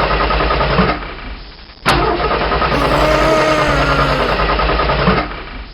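Engine starting and running, with a low pulsing chug. It dies away about a second in, starts again with a sharp click just before two seconds, runs steadily, and fades out again near the end.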